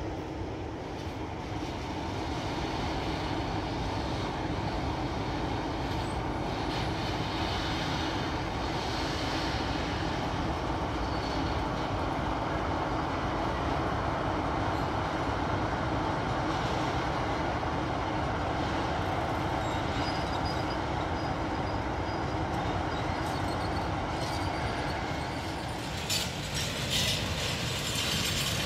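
Diesel freight train moving slowly through a yard: the locomotive's diesel engine runs steadily while the tank wagons roll along the track. A burst of sharp metallic clicking and clatter from the wheels comes near the end.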